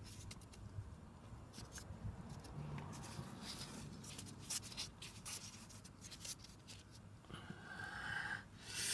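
Faint scraping and light clicking of a gloved hand screwing a bolt into a small brake caliper by hand, metal parts ticking against each other, with a louder scrape near the end.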